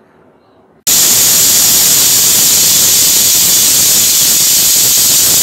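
Pressure cooker letting off steam through its weighted vent, the cooker's 'whistle': a loud, steady hiss that bursts in suddenly about a second in and keeps on. It signals that the cooker has reached full pressure, counted as one whistle in cooking the potatoes.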